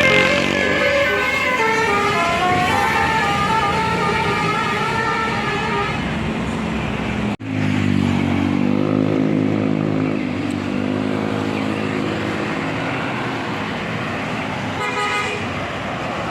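Tour bus 'telolet basuri' melody horn playing a tune of stepping notes. The sound cuts off abruptly about seven seconds in, and lower, slowly bending horn-like tones follow.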